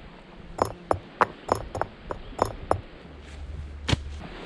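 Tent pole sections snapping together as a tent is put up: a quick run of about seven sharp clacks, roughly three a second, then one louder clack near the end.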